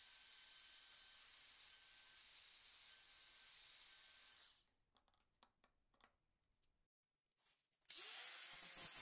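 Heat gun blowing with a faint steady hiss, which stops about halfway through. A few faint clicks follow in near silence, and near the end a much louder high hiss starts up.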